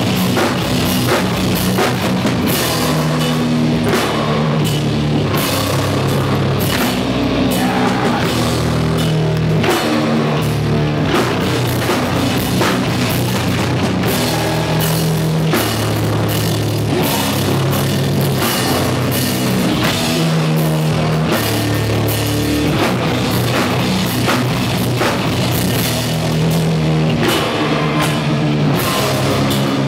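Hardcore band playing live at full volume: heavily distorted guitars and bass playing low chugging chords over a drum kit, loud and steady throughout.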